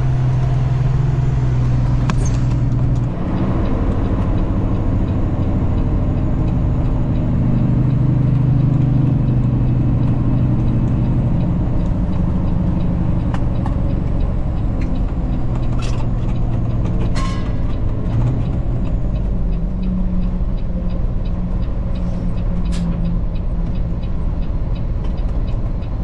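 Semi-truck engine and road noise while driving: a steady low engine tone that shifts in pitch a few times, with a few sharp clicks around the middle.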